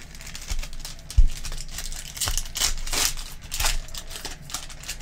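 A foil trading-card pack being torn open, its wrapper crinkling and tearing in irregular bursts, with a dull thump on the table about a second in.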